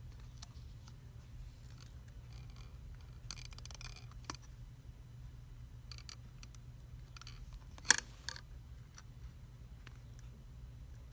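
Scattered small clicks and taps of an opened smartphone's plastic and metal parts being handled and pried with small tools. There is a quick run of clicks about three and a half seconds in and one sharper click near eight seconds, over a steady low hum.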